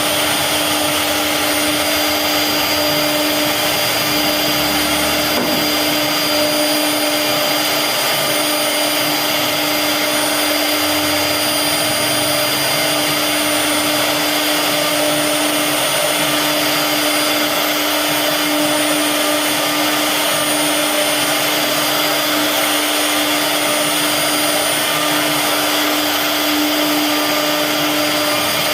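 CNC router spindle running at steady speed while carving a wooden bed-panel design: a constant whine over an even rushing noise of cutting.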